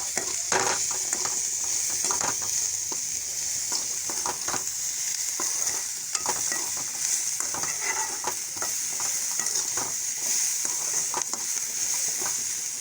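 Chopped beetroot and onions frying in oil in a pan, sizzling steadily, with the spoon scraping and knocking against the pan as it is stirred.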